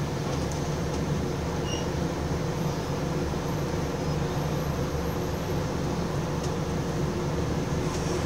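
Diesel engine of a Scania Enviro 400 double-decker bus running steadily, heard from inside the passenger saloon as a constant low hum with a hiss above it.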